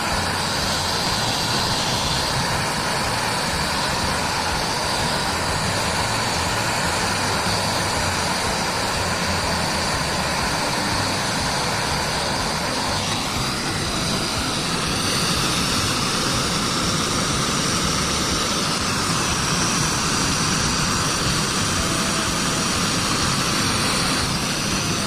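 Refrigeration vacuum pump running steadily while it evacuates the refrigerator's sealed system before charging, with a slight change in tone about halfway through.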